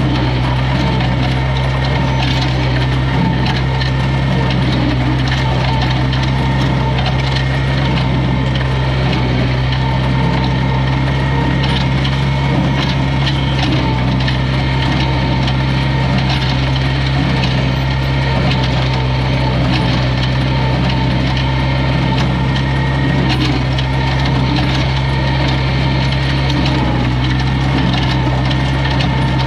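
A 1959 Farmall 560 tractor's engine running steadily under load while it pulls a New Holland Super 66 small square baler taking in hay. The baler's mechanism adds a constant stream of irregular knocks and rattles over the engine.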